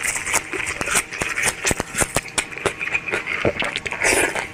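Close-up eating sounds of ripe mango pieces: many short wet smacks and clicks of lips and mouth while chewing, with a louder noisy stretch about four seconds in.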